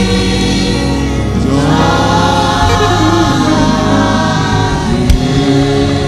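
A women's church choir singing a Yoruba hymn together, their voices amplified through microphones and loudspeakers, with one sharp knock about five seconds in.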